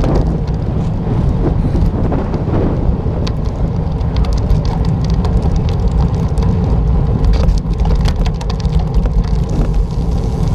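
Wind buffeting the microphone of a moving bicycle as a steady low rumble, with tyre and road noise and scattered small clicks and rattles.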